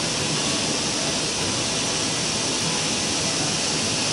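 Steady rushing hiss of a large paint-shop bay's ventilation fans running, loud and unchanging.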